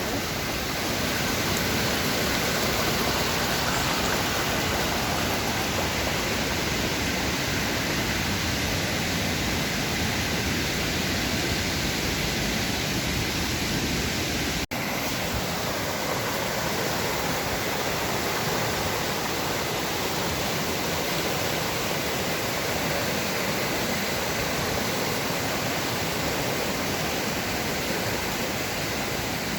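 Steady rushing of a river running very full, a constant wash of water noise, with a momentary break near the middle.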